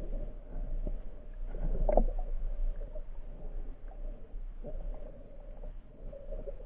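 Muffled water sounds recorded underwater: gurgling with scattered knocks over a steady low hum, swelling loudest about two seconds in.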